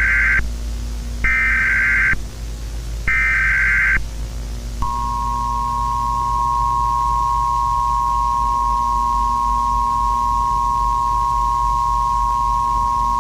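Emergency Alert System alarm: three short bursts of warbling digital data tones (the SAME header), then the steady two-tone attention signal near 1 kHz (853 and 960 Hz together), held for about eight seconds and cutting off abruptly at the end.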